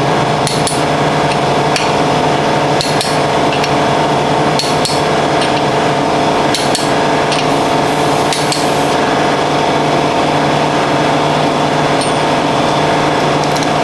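Torque wrench ratcheting and clicking at irregular intervals as the main bearing cap bolts on a freshly installed crankshaft are torqued down, over a steady hum.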